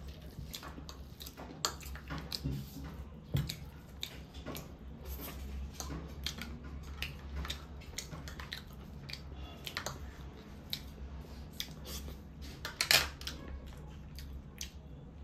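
Close-up eating sounds: irregular chewing and crunching with small clicks of cutlery and dishes, and one sharper, louder click near the end.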